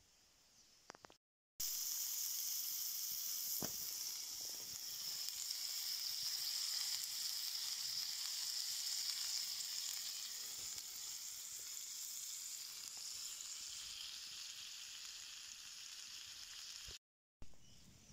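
Shrimp frying with garlic and peppers in a pan over a campfire, giving a steady high sizzle. It starts abruptly about a second and a half in, slowly eases off, and stops abruptly near the end.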